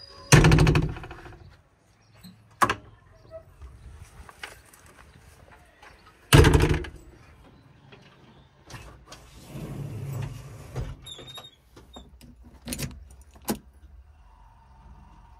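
Heavy machinery: a low steady rumble with two loud sudden bursts about six seconds apart, a weaker swell later, and scattered sharp clicks and knocks.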